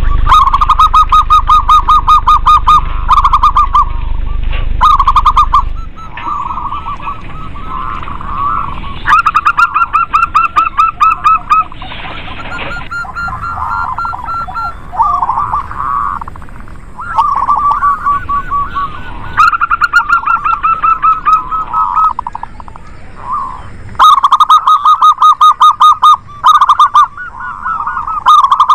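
Several zebra doves (local perkutut) cooing in rapid staccato trills, runs of a few seconds each overlapping one another at slightly different pitches.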